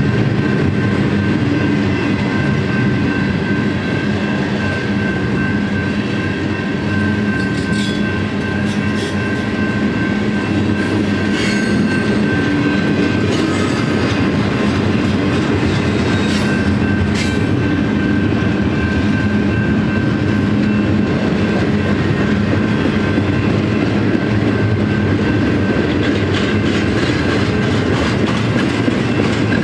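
Double-stack intermodal well cars rolling past at a grade crossing: a steady, loud rumble of steel wheels on rail with a rhythmic clickety-clack over the rail joints. A steady high ringing tone sits over the rumble, and a few faint clanks come around the middle.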